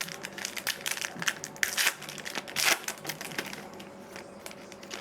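Crinkling and crackling of a sports card pack wrapper as the cards are worked out of it, a dense run of crackles that thins out after about three and a half seconds.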